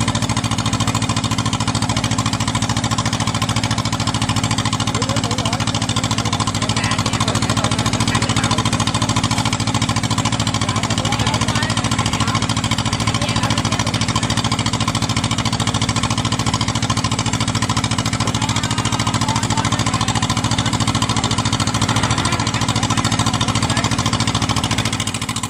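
Combine harvester's diesel engine running steadily, close by, with no change in speed.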